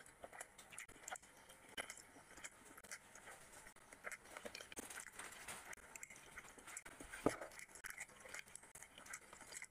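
Hands pulling apart a curried whole mutton head: soft tearing and crackling of the cooked meat and bone, with one sharper snap about seven seconds in.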